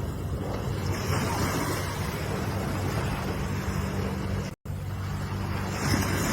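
Ocean waves washing in: a steady rush of surf with a low rumble, swelling about a second in and again near the end. The sound cuts out completely for a split second a little past halfway.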